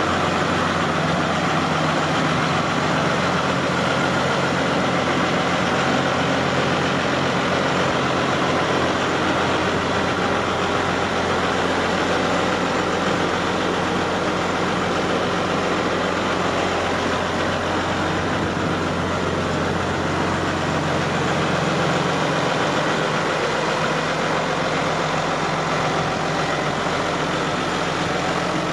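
New Holland TM120 tractor's diesel engine idling steadily.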